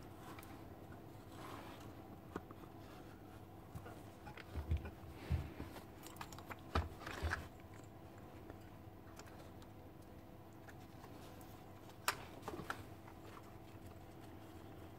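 Faint clicks, taps and dull knocks of plastic and metal parts being handled as a Paslode nail gun's fan and motor unit is fitted back into the gun head. A cluster of knocks comes about four to seven and a half seconds in, and a sharp click about twelve seconds in.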